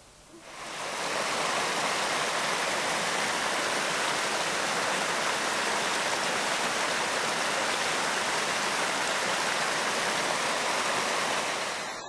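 Water of a small creek rushing and splashing over a little drop, a steady rush that fades in about a second in and stops just before the end.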